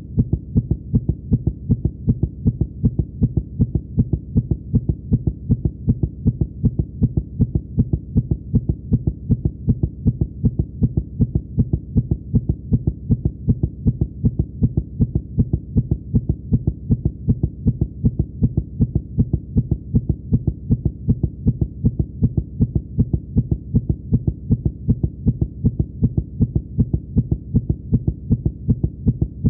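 Fast heartbeat sound effect: a rapid, steady, evenly spaced beat of deep thumps that keeps going without a break.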